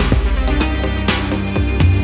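Electronic background music with a steady low bass line and repeated drum and cymbal hits.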